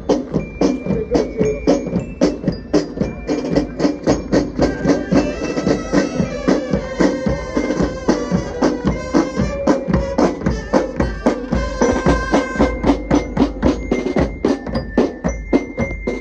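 Marching band playing a march as it passes: snare and bass drums beat a steady rhythm under sustained brass notes, with bell lyre (glockenspiel) notes ringing high above.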